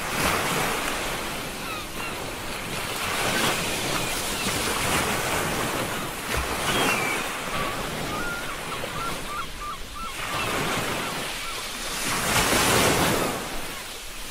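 Ocean surf: waves washing in and drawing back, a hiss that swells and ebbs every few seconds, loudest near the end.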